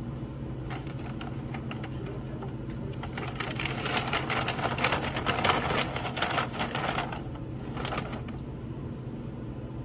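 Paper-bag rustling and the clatter of items being packed into a paper bag at a store checkout, loudest from about three to seven seconds in, over a steady low hum.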